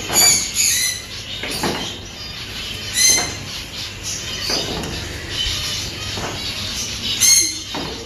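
Metal swing squeaking at its pivots as a child swings back and forth: a short high squeal every second or so, with each swing.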